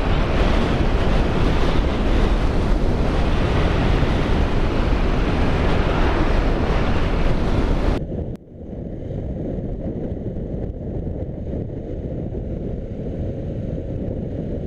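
Heavy wind noise buffeting the microphone of a moving motorcycle, drowning out the engine. About eight seconds in, the sound cuts abruptly to a duller, muffled rumble.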